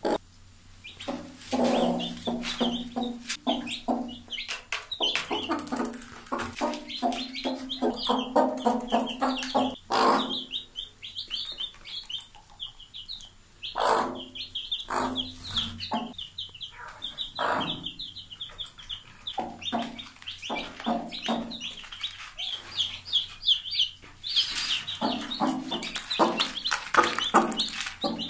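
Mother hen clucking in low, repeated calls, the food call with which a hen teaches her newly hatched chicks to eat. Over the clucks the chicks keep up a constant high peeping.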